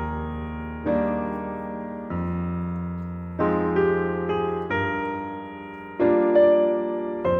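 Background piano music: chords struck every second or so, each ringing out and fading before the next.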